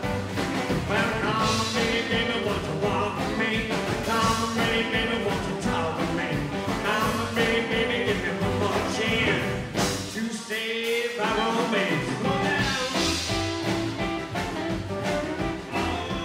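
Live rockabilly band playing: strummed acoustic guitar, drums and a male lead vocal. The low end drops out for about a second partway through.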